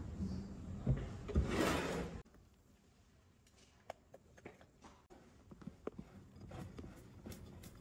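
Silicone spatula folding egg-yolk batter and meringue in a glass mixing bowl: two soft thumps and a swishing scrape in the first two seconds, then, after a sudden drop in level, scattered light taps.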